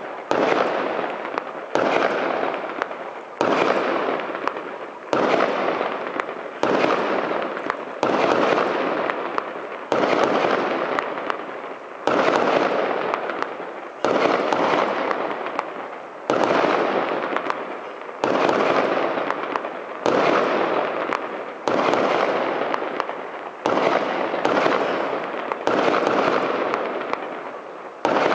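Aerial firework shells bursting one after another, about one every second and a half. Each is a sudden bang that fades away over a second or so before the next.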